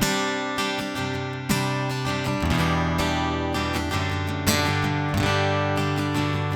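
Applause Elite AE44 II acoustic-electric guitar strummed, chords ringing on with a fresh strum every second or so.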